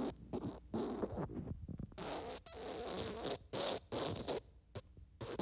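Wet fart sound effect: a string of irregular sputtering bursts of varying length, with a longer one about two seconds in.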